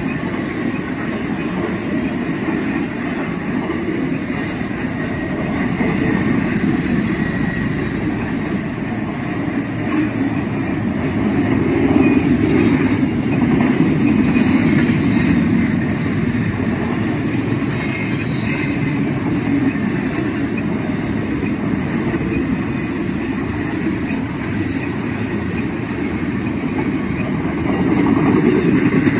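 Double-stack intermodal container train rolling past: a steady rumble of steel wheels on rail that swells and eases as the well cars go by. A couple of faint high-pitched wheel squeals come through, once near the start and again near the end.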